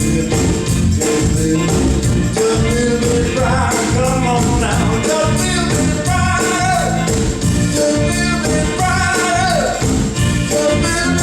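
Live R&B band playing at full volume between sung lines: a steady drum beat over bass, with a melody line sliding up and down through the middle.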